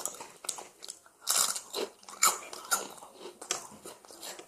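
Close-up crunching as someone bites into and chews Gamjakkang, crispy potato snack sticks. There are a handful of sharp crunches with short pauses between them.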